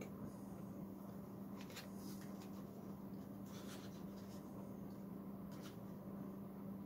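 Faint light clicks and scratchy rustles of hands and tweezers handling a small foam model biplane, a few separate ticks spread through, over a steady low hum.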